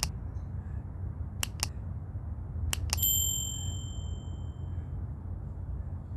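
Subscribe-button animation sound effect: mouse clicks, mostly in pairs, then a bright bell ding about three seconds in that rings away over nearly two seconds, over a steady low background rumble.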